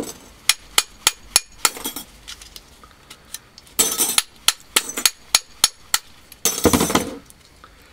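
A hammer tapping the steel lamination stack of a transformer core, giving a run of sharp metallic clinks as the I-plates are knocked loose. There are longer bursts of clattering thin steel plates near the start, about four seconds in and near seven seconds.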